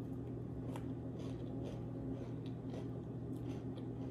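Faint, irregular crunching and clicking of someone biting into and chewing a cookie dipped in s'mores dip, over a steady low hum.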